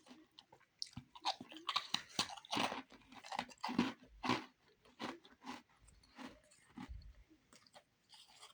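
A person biting and chewing refrozen powdery ice, crisp crunches in quick succession. The crunching is thickest in the first half, then eases to slower, softer chews.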